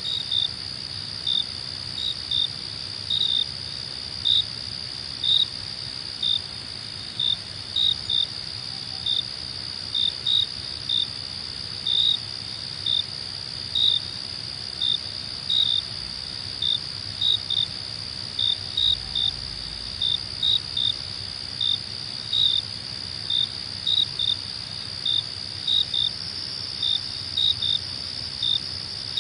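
Insects chirping: a steady high trill under short, louder chirps that repeat irregularly about twice a second.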